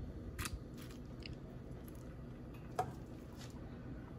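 Metal kitchen tongs placing shredded birria beef into a hollowed baked potato: a few soft clicks of the tongs and wet squishes of the meat. The sharpest click comes nearly three seconds in.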